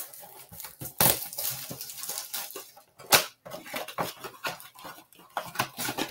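A 2023 Bowman Baseball blaster box being opened and its cellophane-wrapped packs pulled out: crinkling plastic and scraping cardboard, with sharp cracks about a second in and again about three seconds in.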